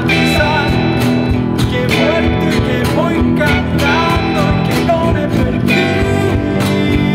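Music: a song with guitar over a steady beat, a wavering melody line running above it.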